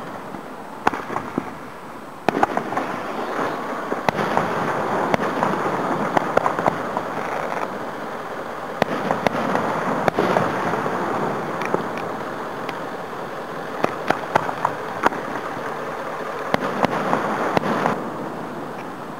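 Aerial fireworks display heard from about a quarter mile away: many sharp bangs of bursting shells scattered throughout, over a continuous background of distant firework noise.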